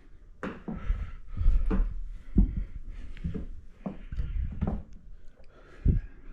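Irregular knocks, dull thumps and rubbing of hand-held handling noise while a screwdriver is picked up, loudest about two and a half and six seconds in.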